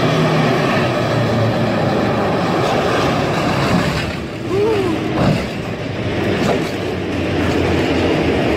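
Tank engine running loud with the clatter of its tracks as it slides on a wet road, with a sharp bang about five seconds in as it strikes the kerb and the roadside trees.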